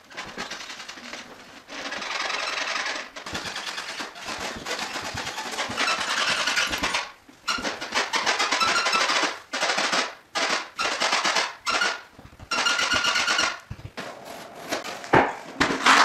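Wooden subfloor creaking and squeaking under a person's footsteps, in a run of crackling creaks broken by short pauses between steps. The squeak is the sign of subfloor that is loose on its joists.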